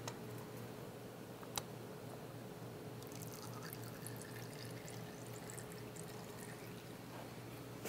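Faint trickle and drip of engine oil running out of the opened oil filter housing on a KTM 790 Adventure engine. One small click of metal sounds about a second and a half in.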